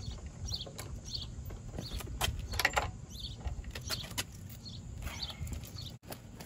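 Scattered light clicks and taps of a screwdriver and plastic parts being worked in a Ram 1500 pickup's headlight housing, over a low steady rumble.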